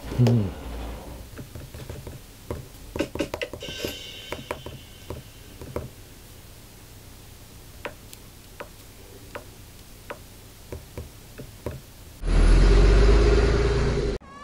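Fingertips tapping on an iPad Pro's glass screen, a scattered series of light taps, after a short falling electronic drum tone at the start. About twelve seconds in, a loud two-second cartoon car sound effect cuts in and stops suddenly.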